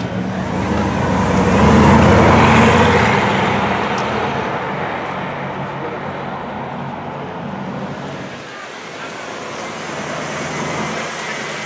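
Bugatti Veyron 16.4's quad-turbocharged W16 engine as the car pulls away and accelerates, loudest about two seconds in and then fading as it drives off. Near the end another car passes close and its sound rises again briefly.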